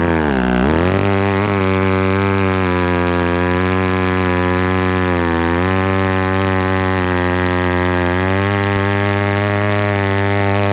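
Vintage chainsaw engine running at high speed. Its pitch sags sharply about half a second in and dips again around five seconds before recovering, as the saw comes under load in the cut.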